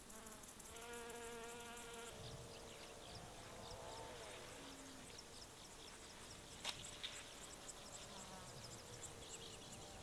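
Flying insects buzzing close by, one passing with a pitch that swoops up and then down near the middle, over faint high ticking. A single sharp click comes a little past halfway.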